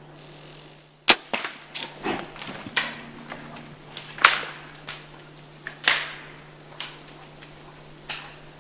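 A bow shot about a second in, one sharp snap as the arrow is loosed and strikes the black bear, then the hit bear crashing off through the woods: a string of sticks and branches snapping and brush crashing, the last ones fainter.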